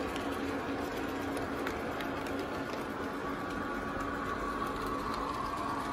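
Lionel O-gauge passenger cars rolling past on three-rail track: a steady rumble with light clicks from the wheels over the rail joints. A faint whine builds near the end as the cars take the curve.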